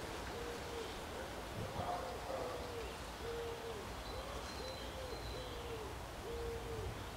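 A dove cooing: a run of soft, rounded coos repeated about once a second at uneven spacing. A brief thin, high note from a small bird comes near the middle.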